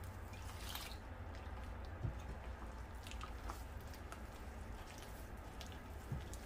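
Water poured from a measuring jug into a glass bowl of teff flour just under a second in, then a hand squishing and working the wet dough with faint small clicks. There are two soft thumps, about 2 s and 6 s in.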